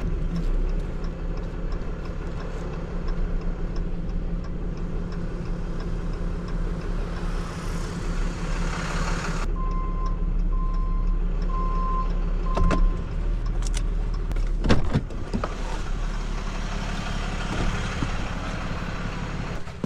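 Tow truck's engine running steadily at low speed as the truck is moved a short way. Four short, evenly spaced beeps sound in the middle, and a few sharp clunks follow in the second half, the loudest about three quarters through.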